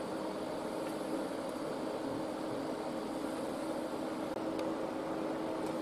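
Electric arc welding on steel tube: the welding arc running continuously as an even, steady hiss, over a constant low hum.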